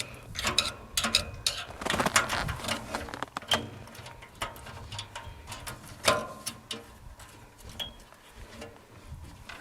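Scattered light metal clicks, taps and knocks of a tent stove and its fittings being handled and set up on its screw-on legs.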